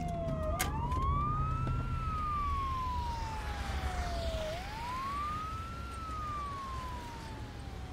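Emergency-vehicle siren sounding a slow wail: each cycle climbs in about a second and then slides down over nearly three, twice over. It grows slightly fainter toward the end.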